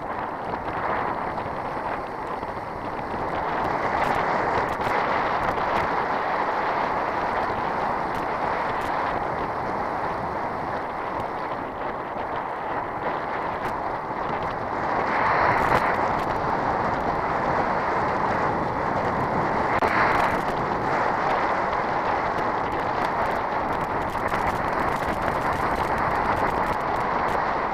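Wind and tyre noise of a road bicycle ridden at speed on a dirt road, a steady rushing that swells louder twice past the middle.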